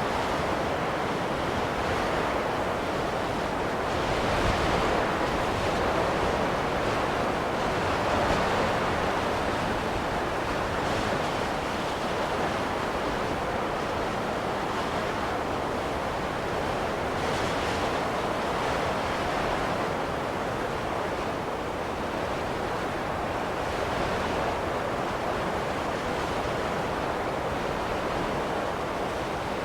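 Steady blizzard wind rushing, swelling in a few slow gusts.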